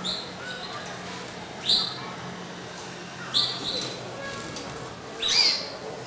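Caged canaries calling: four loud, short, high chirps about every one and a half to two seconds, the last near the end the longest and loudest, with softer twittering between.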